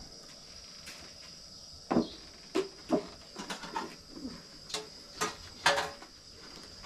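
Crickets chirping steadily in the background, with a handful of short knocks about two to six seconds in.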